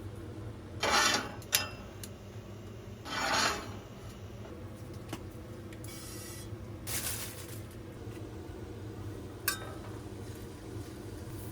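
A few short scraping, rubbing noises of objects being handled, with a couple of sharp clicks, over a steady low hum.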